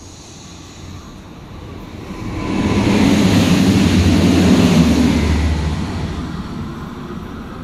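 Train running past on the station track, its rumble and wheel noise swelling about two seconds in and fading away by six seconds.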